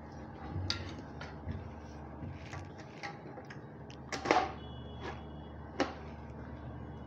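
Aluminium window-frame sections being handled and set down on a workbench: scattered knocks and clatters of metal, the loudest a short cluster about four seconds in, over a steady low hum.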